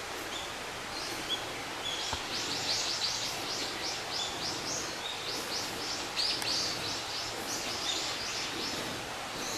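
Small birds chirping in woodland: quick runs of short, high calls, several a second, with a few thin whistled notes, over a steady background hiss.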